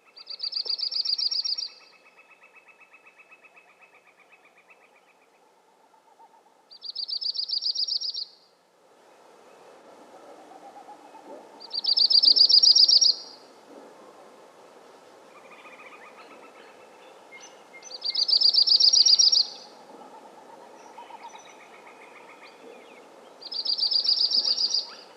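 Yellow-rumped warbler singing: five high, rapid trilled songs, each about a second and a half long, coming every five to six seconds. Fainter, lower trills from other birds run underneath.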